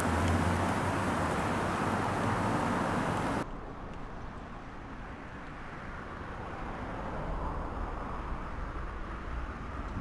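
Road traffic noise, loud with a low engine hum, which cuts off suddenly a little over three seconds in. After that comes a quieter, even wash of street noise that slowly grows louder as an electric commuter train approaches along the track.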